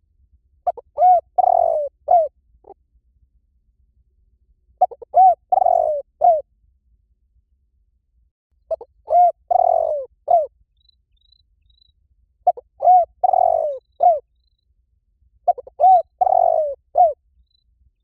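Spotted dove cooing: five repeated phrases about every four seconds, each a couple of short coos, a longer drawn-out coo and a final short note.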